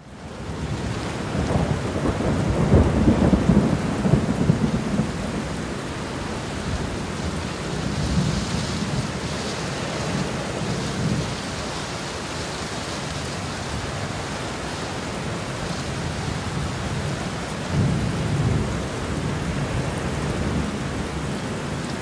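Steady rain with rolls of thunder, fading in at the start, with a long rumble swelling a couple of seconds in and another near the end.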